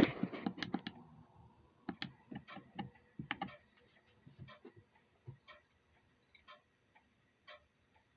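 Clock ticking, about one tick a second in the second half. It opens with a louder knock and a burst of irregular clicks over the first few seconds.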